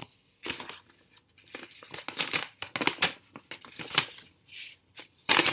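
Paper crackling and rustling in irregular bursts as a folded paper fingering chart is handled, with the loudest crackle near the end.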